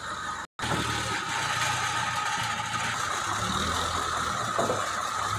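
Diesel lorry engine idling steadily, with a brief dropout about half a second in.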